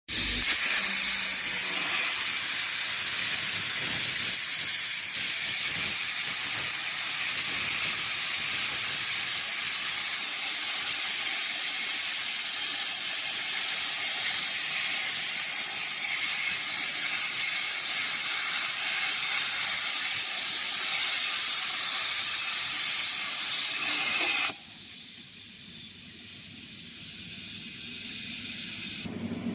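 CNC plasma cutting torch running: a loud, steady hiss of the plasma arc and air jet cutting steel, which cuts off abruptly about 24 seconds in, leaving a much quieter background.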